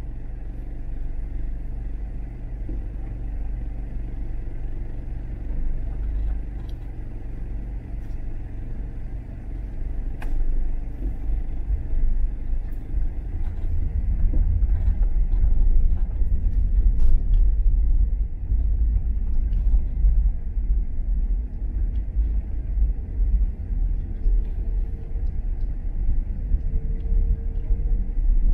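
Car driving, a steady low rumble of engine and road noise that grows louder about halfway through, with a few faint clicks.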